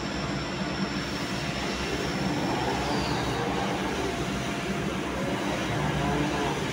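Metal lathe running with a part spinning on its spindle: a steady mechanical hum and rumble.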